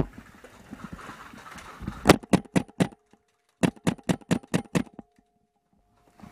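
Airsoft gun firing two quick strings of shots, several a second: about half a dozen shots, a short pause, then about eight more.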